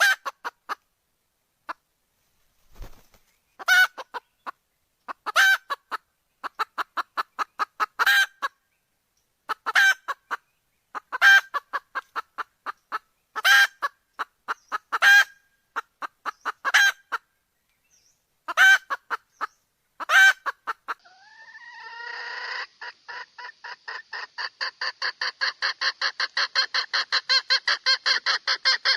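Red junglefowl hen calling to a rooster: a loud call every second or two, each trailed by a run of short quick clucks. About two-thirds of the way through it changes to a continuous fast clucking that grows louder.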